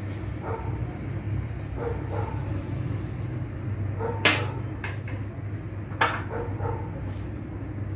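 Short pitched calls, like an animal's, repeating about once a second over a steady low hum, with two sharp clatters about four and six seconds in.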